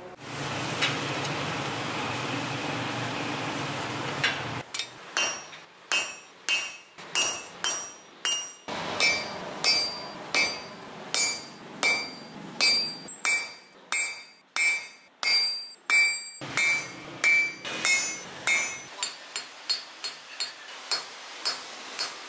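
Hand hammer striking red-hot spring steel on an anvil: a long run of ringing blows, about one and a half a second, coming faster near the end. A steady rushing noise runs before the hammering starts, a few seconds in.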